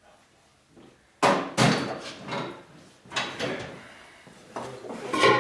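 Sharp metal-on-metal knocks and clanks, about half a dozen irregular strikes beginning about a second in, some leaving a short ringing note.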